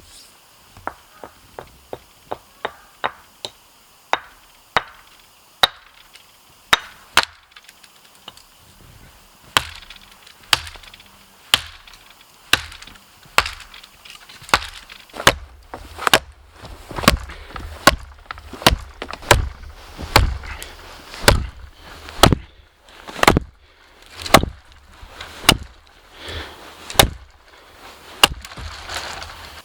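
A small tree being chopped down with an axe for a shelter pole. Quick light blows come in the first few seconds, then louder strikes land about once a second, each with a deeper thud under it from about halfway on.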